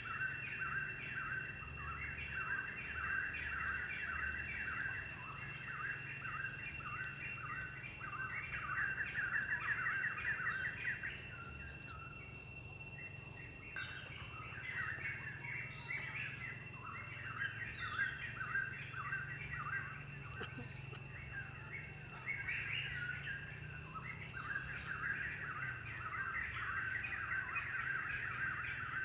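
Forest birds chirping in dense, continuous chatter that thins out briefly around the middle, over a steady, high-pitched insect drone.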